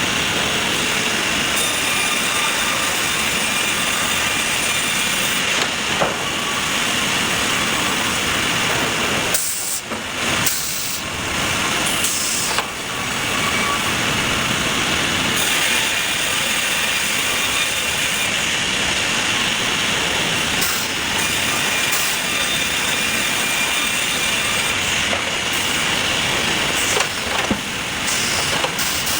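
Sawmill machinery running steadily, a dense hiss with a faint high whine, broken by brief dips about ten and twelve seconds in.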